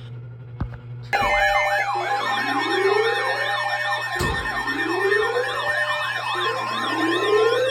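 Several electronic sirens sounding at once, their wailing pitch sweeps overlapping as they rise and fall. They start abruptly about a second in, over a steady low hum, with a short knock about four seconds in.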